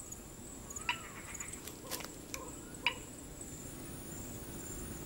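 Night forest ambience: a steady high-pitched insect drone over a low background hum, with three short sharp clicks about a second apart in the first three seconds.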